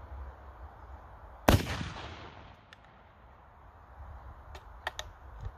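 A single black-powder shot from a .577 Snider short rifle about a second and a half in, with a ringing tail that fades over about a second. A few faint clicks follow near the end.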